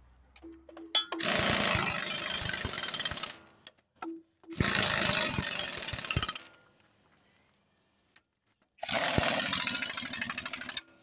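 Impact wrench hammering bolts in, in three bursts of about two seconds each with short pauses between, fastening a Farmall H engine in place.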